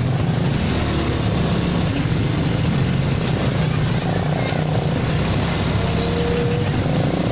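Truck driving in traffic: a steady low engine hum with road noise.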